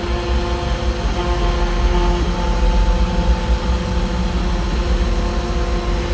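Fox Alien 4040 desktop CNC router with its 300 W spindle running a cut: a steady mechanical hum with several whining motor tones that shift to new pitches every second or so as the machine changes moves, over a low rumble.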